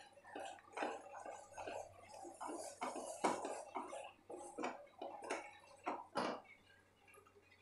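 Wooden spatula stirring and scraping thick almond halwa paste in a non-stick pan, with irregular short scrapes and knocks a few times a second.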